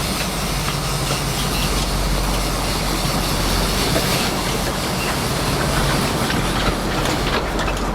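Fishing reels' drags buzzing as two hooked albacore tuna take line, over the steady rush of the boat's engine, water and wind.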